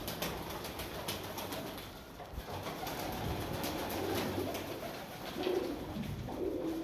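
Flock of Sialkoti pigeons feeding on grain: many quick pecking ticks on the floor, with low cooing coming in a few times in the second half.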